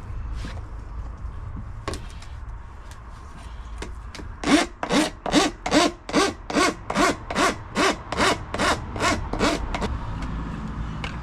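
Hand saw cutting. After a few seconds of quieter rubbing, it settles into steady back-and-forth strokes, about three a second, each stroke with a short falling squeal.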